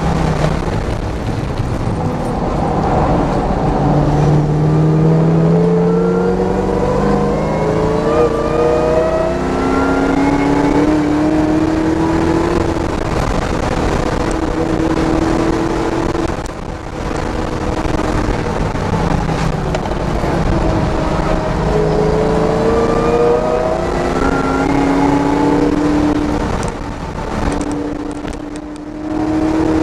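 Camaro's engine pulling hard on track, heard from inside the cabin: its pitch climbs as it accelerates, drops briefly about halfway through and again near the end as it lifts off, then picks up again, over steady wind and road noise.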